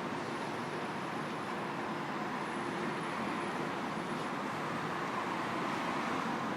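City street traffic noise: a steady hum of road vehicles, with a faint high whine in the first half.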